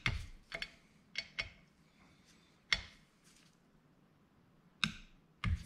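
About seven sharp metallic clicks and clinks at irregular intervals, from a wrench and socket working the rocker-arm nuts on a 168F diesel's cylinder head as they are torqued to 15 foot-pounds after the valve clearances are set.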